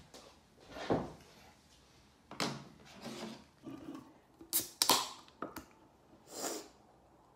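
Aluminium Cass Light beer can opened by its pull tab: sharp cracking clicks about two-thirds in, then a short fizzing hiss, after a few light knocks.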